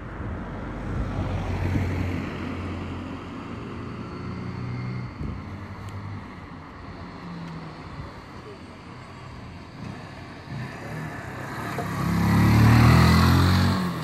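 Genata XRZ 125 motorbike's 125cc four-stroke engine heard riding up from a distance, its note growing to its loudest as it passes close by near the end, then falling away.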